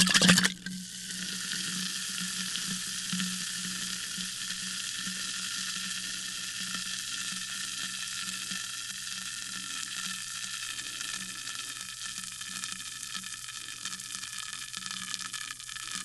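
Sparkling water fizzing: a steady dense crackle of carbonation bubbles popping. It follows the end of a loud pour, which stops about half a second in.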